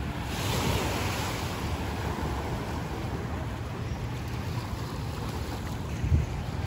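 Small waves washing up the sand at the shoreline, one wash swelling about half a second in and fading away, over a steady low rumble of wind on the microphone. A brief low thump near the end.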